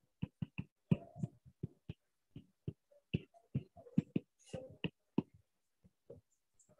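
Stylus tapping on a pen tablet during handwriting: an irregular run of short clicks and knocks, several a second.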